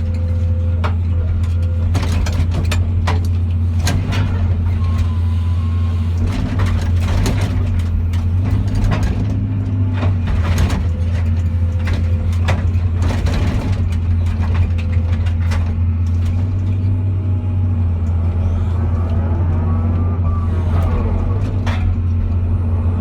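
Excavator's diesel engine running steadily under load, its hydraulics whining and changing pitch, while irregular sharp bangs and crunches of metal come from the forklift being smashed and pulled apart.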